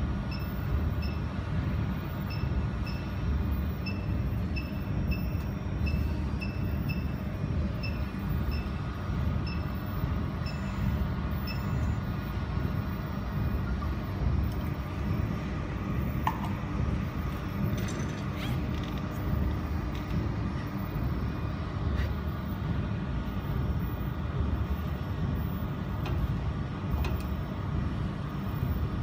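Jewelry laser welding machine running with a steady low hum from its cooling fan and pump. A faint high beep repeats about twice a second for the first twelve seconds or so, and a few faint clicks come later.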